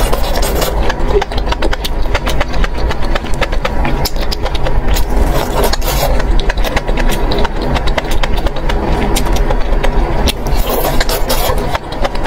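Close-miked chewing of spicy sauce-coated enoki mushroom rolls: a dense, continuous run of wet smacks and crunchy clicks over a steady low hum.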